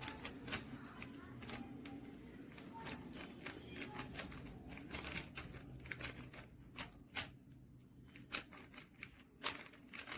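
Plastic 3x3 Rubik's cube being turned by hand: quick clicking and clacking of the layers rotating, in irregular runs of turns with short pauses.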